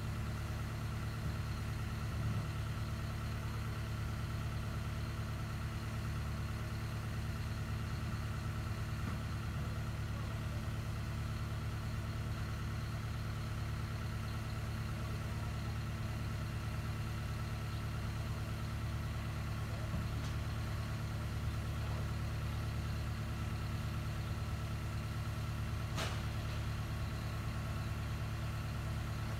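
Hyundai 140 excavator's diesel engine idling steadily, an even low hum with no revving, as the machine stands with its bucket raised. A faint single click about three seconds before the end.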